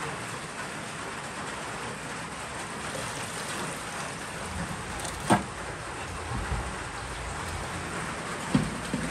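Tap water running and splashing into a metal bowl as bunches of fresh greens are rinsed under it. One sharp knock about halfway, the loudest sound, and two smaller knocks near the end.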